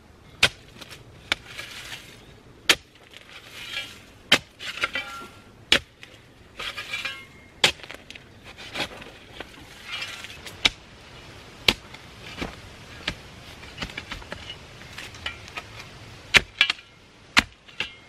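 Repeated sharp knocks, roughly one every second or so, with short scraping or rustling sounds between them.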